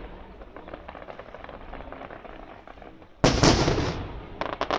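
Fireworks display: the fading tail of an earlier burst, then a loud aerial shell burst about three seconds in that dies away over about a second. Near the end a rapid string of sharp crackling pops begins.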